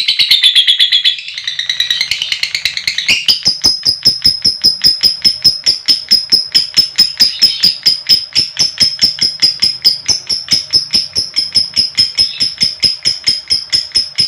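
Lovebird ngekek: a long, rapid chattering call of sharp high notes repeated about five times a second, shifting about three seconds in to a steady run of notes on one high pitch.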